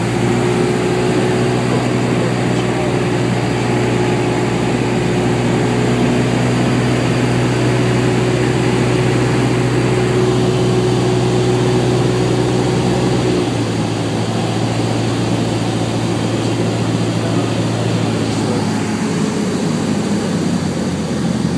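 Light training plane's engine and propeller droning steadily, heard inside the cabin on the landing approach. About thirteen seconds in, the engine note steps down to a lower, slightly quieter drone.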